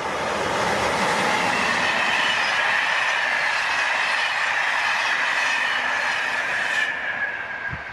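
Electric-hauled passenger train of Corail coaches passing at speed: steady rail and wheel noise with a high ringing tone running through it, falling slightly in pitch until the tail passes about seven seconds in.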